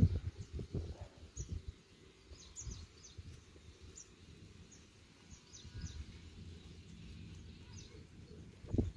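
Low rustling and bumps of handling close to the microphone, mostly in the first second or so. Faint, short, high bird chirps are scattered throughout in the background.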